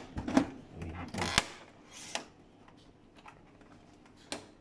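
Plastic clicks, snaps and creaks from the side cover of a Fuji Xerox DocuPrint CM225 printer being prised off its clips with a screwdriver: four sharp snaps in the first two seconds or so, the loudest about a second and a half in, then only faint handling ticks.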